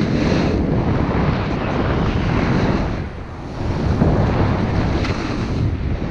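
Wind buffeting an action camera's microphone during a snowboard descent, mixed with the hiss of the board sliding over snow. The rush dips briefly about three seconds in, then comes back.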